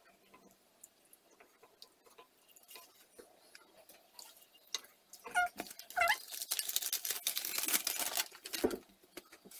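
A wooden spatula stirring and scraping melted cheese sauce in a ceramic saucepan on a gas hob, with faint scattered clicks. About five seconds in come two short squeaky cries, then about two seconds of loud hiss that cuts off near the end.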